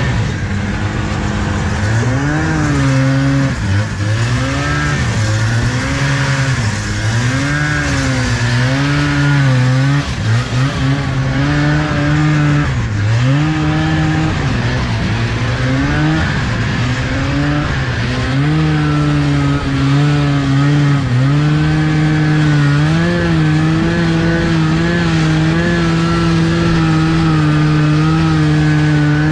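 1975 Arctic Cat Panther 440 snowmobile's two-stroke engine running under way through deep snow, its revs rising and falling again and again over the first half, then held steady for the last ten seconds or so.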